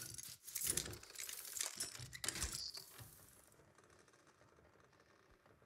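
A quick run of sharp mechanical clicks and clatters for about three seconds, then near silence.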